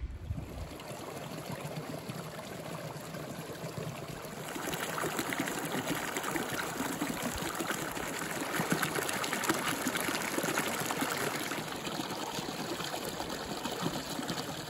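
Running water, a stream or small cascade, a steady rushing splash that grows louder about four seconds in.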